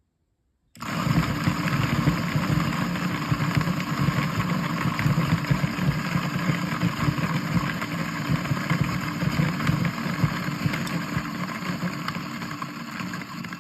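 Electric coffee grinder's motor switching on about a second in and running steadily for about twelve seconds, then cutting off near the end.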